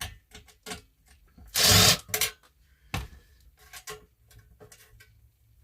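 Hand-tool work on an old metal battery-booster case: a string of clicks and knocks from a screwdriver and the case being handled, with one louder scraping rasp a little under two seconds in.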